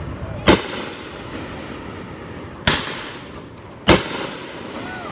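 Aerial fireworks bursting overhead: three sharp bangs, about half a second in, near three seconds and near four seconds, each trailing off in a short echo.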